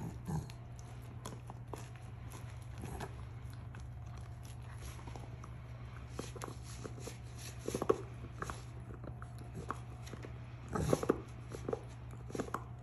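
A King Charles spaniel gnawing a knotted chew bone and rooting with its nose in a fabric blanket: irregular clicks, crunches and scuffs, with louder clusters about eight seconds in and again about eleven seconds in.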